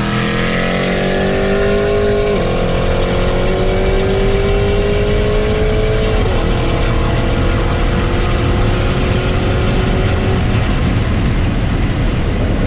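Supercharged V8 at full throttle, heard from inside the car: the engine note climbs steadily in pitch, with upshifts about two and a half and six seconds in.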